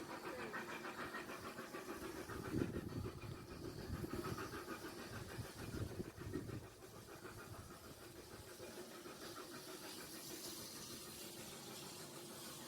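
Steam locomotive working with a rapid, even beat of exhaust chuffs that fades about seven seconds in, leaving a steady hiss of steam.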